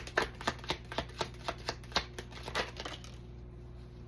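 Tarot cards being shuffled by hand, a quick run of card slaps about four a second that stops about three seconds in, leaving a faint steady hum.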